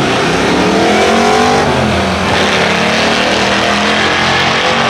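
Two drag cars launching off the line and accelerating hard down the strip. The engine note climbs, drops once about two seconds in, then climbs again.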